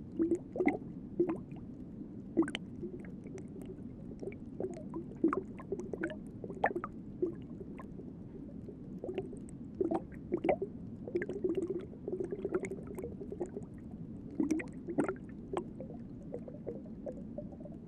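Underwater bubbling and gurgling: a steady low wash of water with many irregular pops and clicks.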